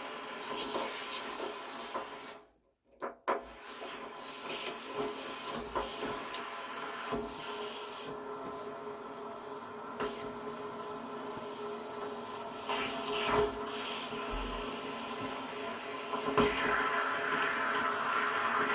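Water being power-flushed out of an electric water heater's drain valve, with an irregular rattling clatter. It is a clickety-clack instead of a smooth flow, which the owner takes for sediment particles catching in the valve and flushing out, the sign of mineral buildup in the tank. The sound drops out briefly about two and a half seconds in.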